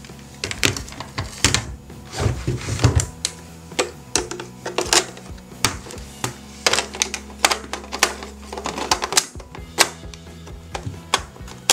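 Hard plastic toy parts clicking and clacking irregularly as they are handled, with a plastic disc pressed into the slot of a plastic toy launcher near the end.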